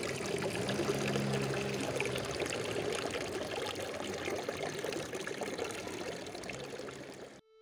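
Water running and splashing steadily, as from a fountain, cutting off suddenly near the end.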